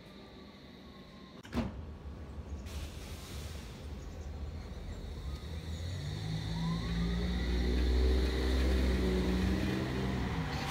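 London Underground S Stock train pulling away from the platform: its traction motors whine, rising in pitch, over a rumble that builds through the second half. A sharp click about a second and a half in comes before the train sound starts.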